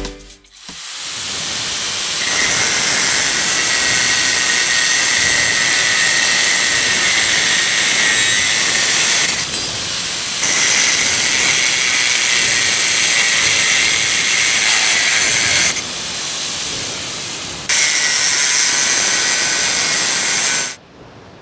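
Loud, steady hissing machine noise with a high whine running through it, typical of a power tool or compressed-air equipment at work. It dips twice for a second or two and cuts off suddenly near the end.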